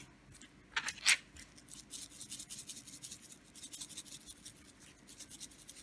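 Seafood rub shaken from a spice shaker over a whole bream: a run of quick, dry, rattling ticks, after two short scrapes about a second in.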